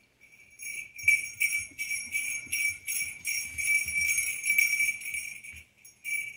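Small jingle bells shaken and ringing in quick, uneven jingles, about three a second, with soft thumps underneath. The sound starts about half a second in, breaks off briefly near the end, then comes back for a moment.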